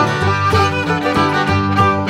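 Background music led by a fiddle, with a steady beat.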